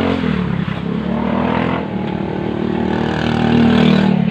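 A motor vehicle engine running close by, its pitch rising and falling as it revs, getting louder toward the end.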